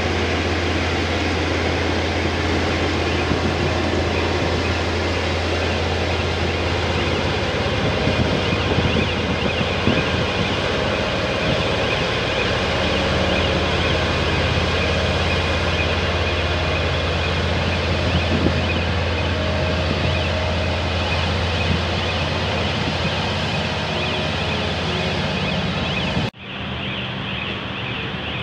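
Heavy diesel engine of a Cometto girder transporter running steadily under load as it hauls a concrete box girder, a deep hum with a dense rushing noise over it. About 26 seconds in the sound drops suddenly and a quieter hum carries on.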